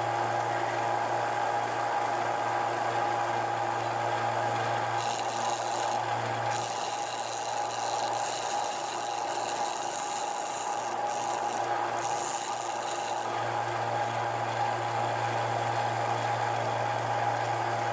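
Harbor Freight 1-inch by 30-inch belt sander running with a steady hum while a small piece of wood is sanded on the belt. A higher hiss of abrasive on wood joins in about five seconds in and drops away at about thirteen seconds.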